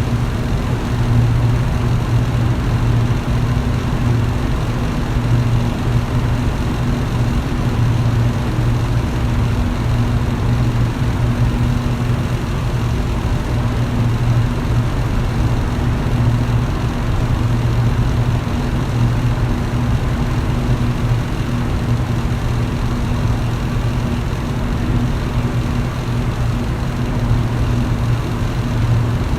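Electric fan running steadily: a low, even motor hum under a constant rush of air from the blades.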